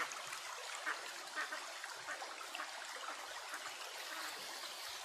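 Ducks giving a few short, soft quacks over a steady trickle of running water.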